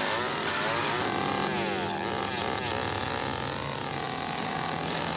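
Motor engine running, its pitch gliding up and down, with steady low engine tones underneath.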